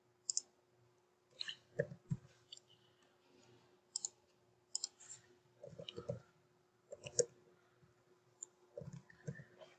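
Faint, scattered clicks of a computer mouse and keyboard, a click or a few keystrokes at a time at irregular intervals, as an email is opened and its address and subject are typed in.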